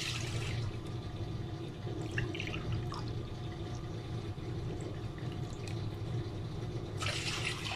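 Milk poured from a plastic jug into an aluminium saucepan: a short splashing pour in the first half-second, then a low steady hum with a few faint clinks, and a second pour starting near the end.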